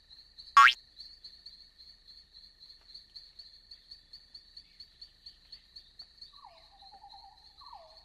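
A brief cartoon sound effect near the start, then a night ambience of crickets chirping steadily, about four to five chirps a second. About six seconds in, frogs join with wavering croaking calls that drop in pitch.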